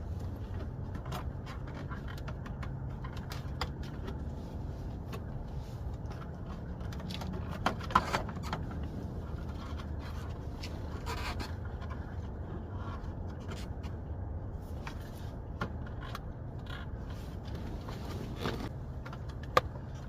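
Plastic steering-column trim being handled and fitted, with scraping and rubbing and a few sharp clicks as it goes into place. The loudest clicks come about eight seconds in, over a steady low hum.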